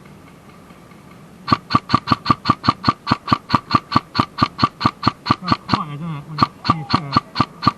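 Airsoft electric gun's low-battery warning beeping: rapid, evenly spaced short beeps at about five a second. They start about a second and a half in and keep going, the sign that the gun's battery is running low.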